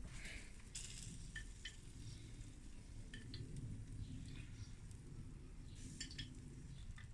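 A few faint clicks and clinks as grilled skewers are lifted off the grill grate, over a low steady background rumble.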